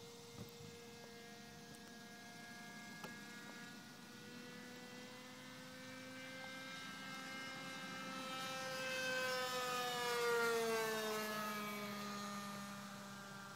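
RC model airplane's engine droning in flight, growing louder and dropping in pitch as it passes close about ten seconds in, then fading away.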